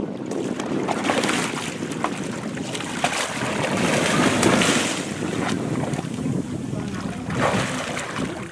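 Wind buffeting the microphone over water sloshing against a drifting boat's hull, rising and falling in swells, with a few small knocks.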